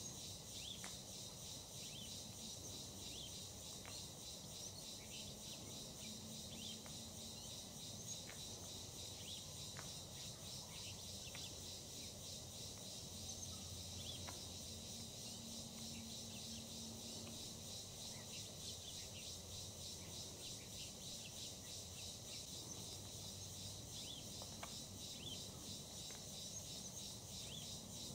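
Faint, steady chorus of crickets and other insects: a high, pulsing trill with a few short chirps scattered through it, over a low background hum.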